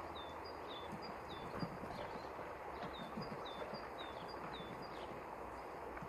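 A small songbird repeating short, high call notes that hook downward, about three a second, over soft low knocks and taps from tits at a wooden seed feeder.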